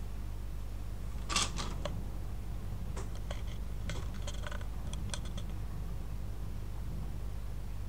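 Steady low electrical hum picked up by a webcam's microphone, with a string of small clicks and scrapes from about a second in until past five seconds, the sound of the webcam being handled and shifted.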